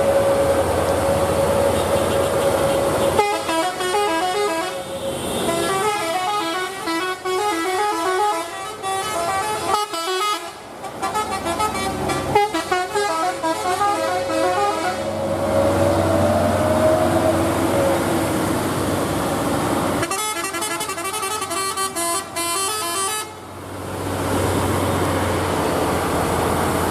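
A vehicle's multi-tone musical horn playing quick runs of alternating notes, in two long spells (one from about three seconds in to about fifteen seconds, one from about twenty to twenty-three seconds), over the steady hum of a running engine.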